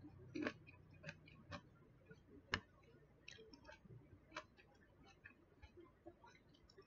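Metal fork tapping and clicking against a plastic food container while stirring pomelo salad: faint, irregular small ticks, the sharpest about two and a half seconds in.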